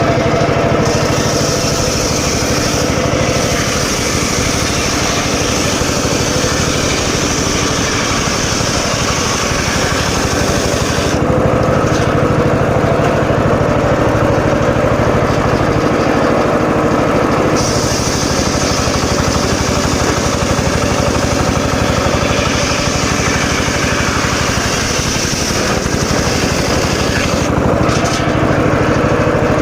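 Homemade engine-driven circular saw running steadily while cutting teak wood. A high hiss rides over the engine hum and drops out for about six seconds around the middle, and again briefly near the end.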